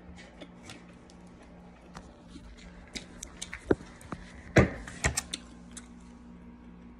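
Scattered clicks and taps from a plastic fork and the handling of a foil-lined styrofoam takeout container, with two louder knocks about four and a half and five seconds in, over a faint steady hum.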